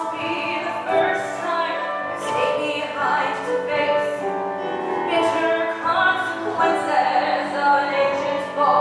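A woman singing a musical-theatre ballad solo over instrumental accompaniment.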